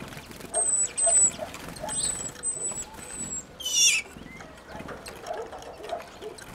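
Great tits calling at a seed feeder: five thin, high whistled notes in a row, each dipping slightly at its end, then a short harsh call sweeping downward about three and a half seconds in.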